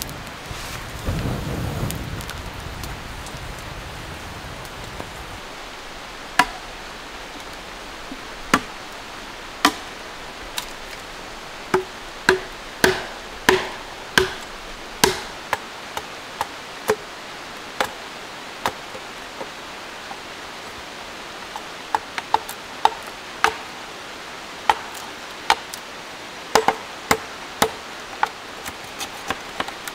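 Machete chopping into a green bamboo pole: sharp, irregular chops, some in quick runs with a short ringing note, over a steady background hiss.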